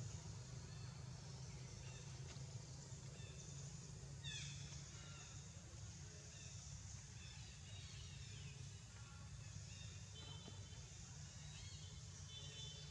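Quiet outdoor ambience: a low steady hum under faint, scattered bird chirps, with one quick falling call about four seconds in and a few short chirps near the end.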